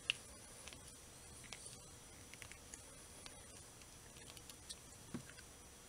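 Faint, scattered small clicks and ticks of a screwdriver turning the screws that hold a small turntable motor's housing together, with a sharper click right at the start.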